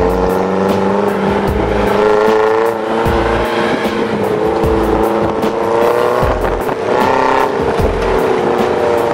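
Background music with a steady beat, mixed with the running engine of an off-road jeep driving over a rocky track.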